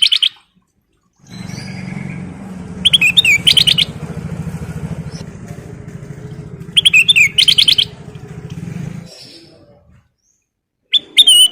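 Kutilang emas, a bulbul, singing short loud warbled phrases about every four seconds, three in all. Under the first two phrases runs a steady low motor drone that fades out about nine seconds in.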